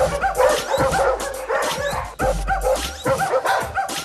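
Kennel dogs barking, many short barks overlapping one another, over background music.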